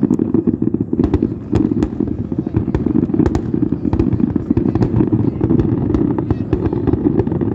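Fireworks display with dense, overlapping bangs and crackles, a continuous heavy rumble from many shells bursting in quick succession.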